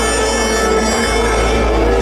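Loud music: a held melody line over a steady deep bass, with many instrument tones at once.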